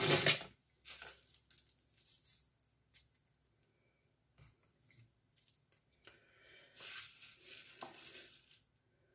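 Gritty scraping and rustling of a sugar-and-oil scrub being mixed, the sugar grains grating in the bowl. It comes in short runs near the start, again from about one to two and a half seconds, and again near the end.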